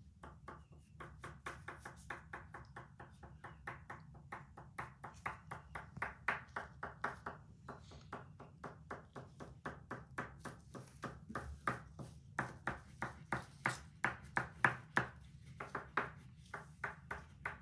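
A white oil pastel tapped again and again onto black paper on a wooden table, dabbing dots: a steady run of light taps, about four a second, with a couple of short pauses.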